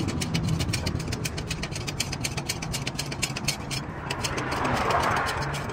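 An engine idling with a steady low hum, with a rapid, even clicking of about six to seven a second over it.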